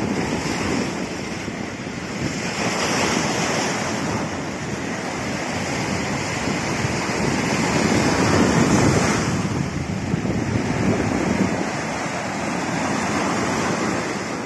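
Choppy Caspian Sea surf washing and breaking over shoreline rocks, with wind buffeting the microphone. The wash surges louder about three seconds in and again around eight to nine seconds.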